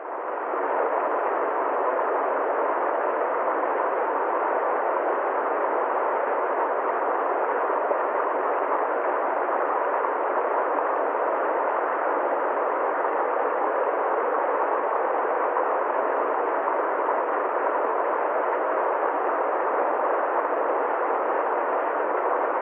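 Steady rushing of a waterfall, a constant even wash of water noise that fades in over about the first second.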